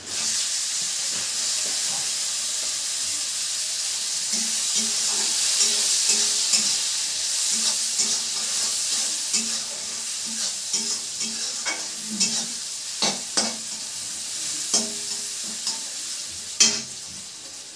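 Chopped onion, tomato and green chilli hitting hot oil in a kadai, sizzling suddenly and loudly, then frying more softly. From about five seconds in, a spatula stirs the mixture, clicking and scraping against the metal pan.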